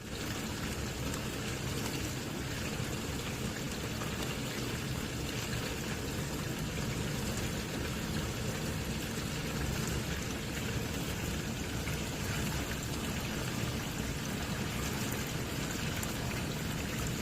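Electrolux dishwasher with water rushing steadily inside it, an even hiss that does not change.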